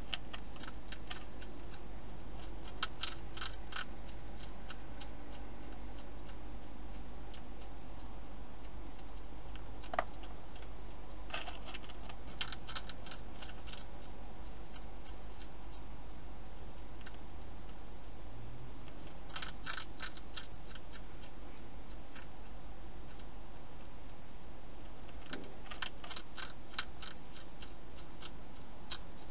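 Hedgehog eating from a dish, crunching its food in short bursts of rapid crisp clicks every several seconds, over a steady low hum.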